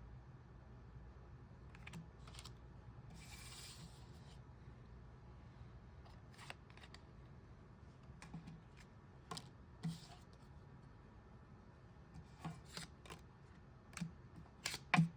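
Playing cards being handled on a table: scattered light clicks and taps, with a short sliding swish about three seconds in and a few sharper snaps of cards laid down near the end.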